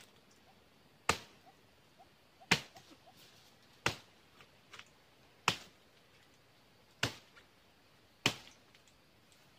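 Machete blade chopping into the frond stalks of a young oil palm: six sharp hacks, one about every second and a half, pruning the lower fronds.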